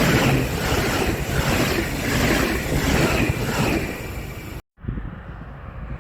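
A train passing close by, its wheels on the rails giving a loud rushing noise that swells rhythmically as each car goes past, with wind on the microphone. It cuts off suddenly about three quarters of the way through, leaving a quieter steady background.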